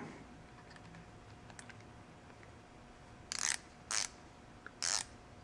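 Ratcheting hand screwdriver loosening a bolt on a turntable's tone arm clutch assembly: three short ratcheting rasps in the second half, after a few quiet seconds.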